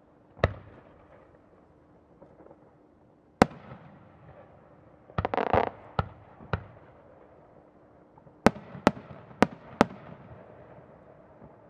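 Aerial firework shells bursting. A single bang about half a second in and another a few seconds later are followed by a dense burst of rapid crackling in the middle and then four sharp bangs in quick succession near the end, each trailing off in a rolling echo.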